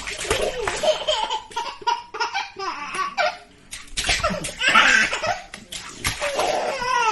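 A baby laughing in repeated bursts of giggles and belly laughs, with water splashing in a bathtub between the laughs.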